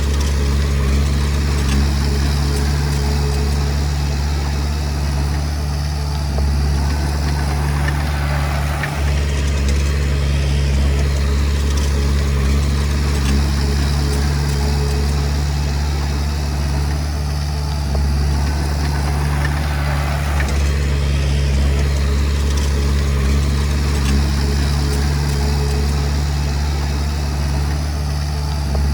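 Komatsu D20P bulldozer's diesel engine running, a deep steady drone, with the clatter and grinding of the machine at work swelling and easing a few times.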